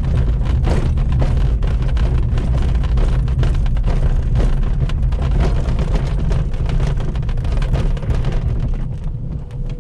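A glider's main wheel rolling fast over a bumpy grass strip after touchdown, a loud rumble with irregular knocks and rattles through the fuselage and canopy. It eases off near the end as the glider slows.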